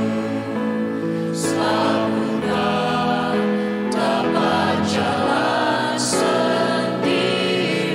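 A mixed group of men and women singing a worship song together into handheld microphones, their voices moving together through long held notes.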